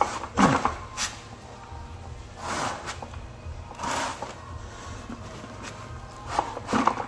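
Handling noises from a manual transmission being turned around on a bench: a few separate scrapes and knocks, with a low steady hum underneath.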